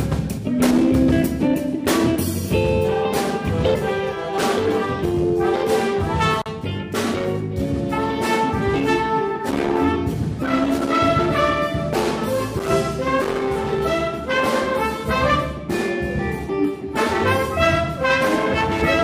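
Jazz band playing a tune together: drum kit, electric bass guitars and a saxophone and wind section.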